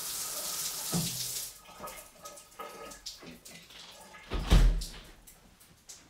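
Shower running with a steady hiss of water, cutting off about a second and a half in. Then scattered light clicks and a single loud thump about four and a half seconds in.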